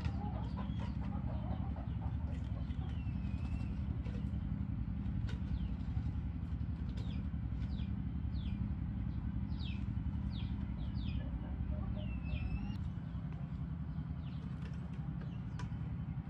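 A steady low engine-like drone, with small birds chirping over it: a run of short falling chirps through the middle and a couple of longer curving calls.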